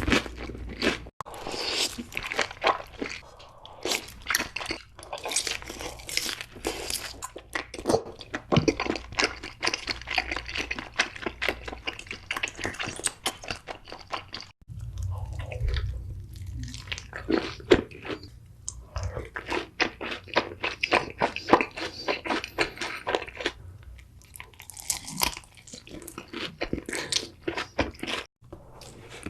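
Close-miked chewing of food, with rapid crisp crunches that pause briefly about halfway through.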